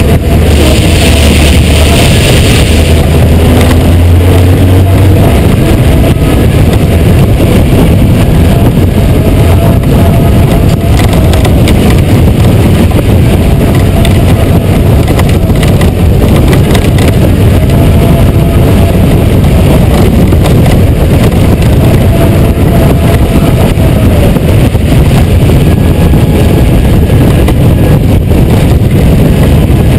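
Honda GoldWing 1500 motorcycle's flat-six engine running steadily under way, mixed with a loud, even rush of wind and road noise at an onboard camera.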